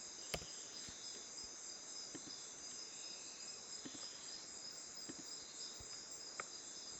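Steady high-pitched background trill, with a few short sharp clicks over it, the clearest just after the start.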